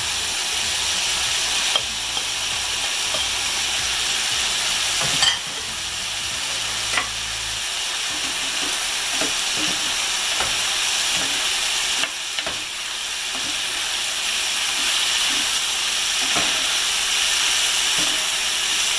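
Diced vegetable filling sizzling in a frying pan as flaked milkfish is added and stirred in with a spatula: a steady sizzle with scraping and a few sharp knocks of the spatula against the pan.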